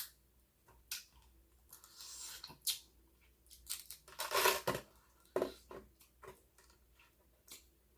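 King crab leg shell being cracked and pulled apart by hand, with irregular sharp cracks and snaps and close-up eating between them; the loudest crunch comes about four and a half seconds in.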